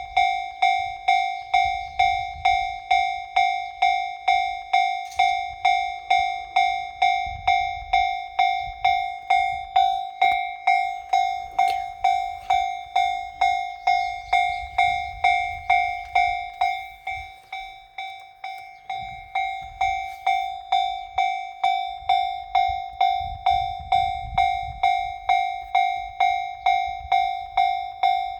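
Japanese railway level-crossing warning bell ringing in a steady rhythm, a little under two strikes a second, each strike a clear metallic ding. It fades briefly about two-thirds of the way through, then comes back to full strength.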